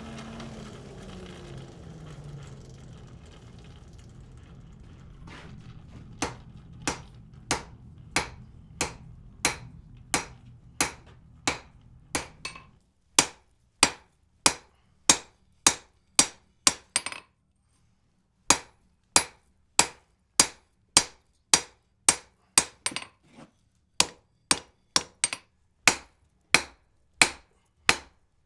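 Hand hammer striking hot wrought iron on an anvil: sharp blows in a steady rhythm of about one and a half a second, with a short pause partway through. A low steady hum fills the first few seconds before the blows start.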